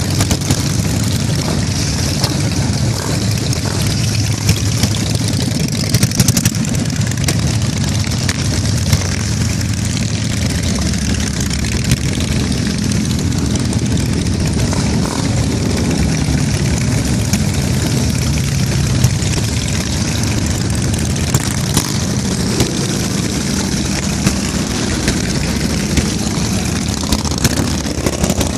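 A long procession of cruiser and touring motorcycles riding slowly past one after another, their engines running at low speed in a steady, overlapping drone with no let-up.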